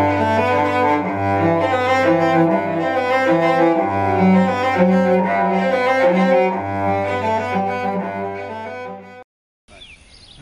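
Bowed cello music: long, low held notes under a moving melody. It cuts off suddenly about nine seconds in, followed by a moment of silence and faint background sound.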